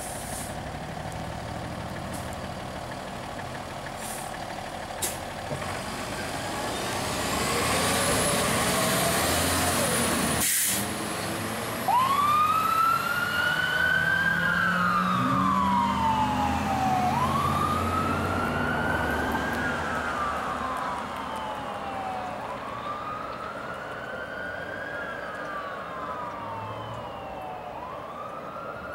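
Fire truck pulling out with its diesel engine running, its siren first sweeping up loudly, then settling into a slow wail that rises and falls about every five seconds.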